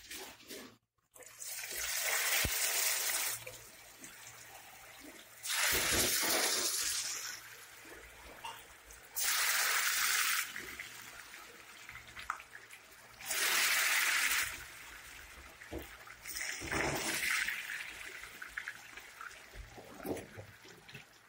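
Cut potato chips deep-frying in hot oil in a karahi: a steady sizzle that surges loudly about five times, each surge lasting a second or two.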